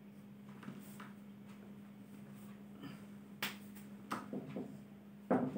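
Marker pen writing on a whiteboard: faint strokes with a few sharp clicks and taps of the tip about three and a half to four seconds in, over a steady low hum.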